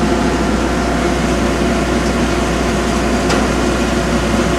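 Blanchard 20K-36 rotary surface grinder's spindle running steadily, its 30-hp motor turning the 20-inch segmented grinding wheel freely with no work under it: a constant machine hum.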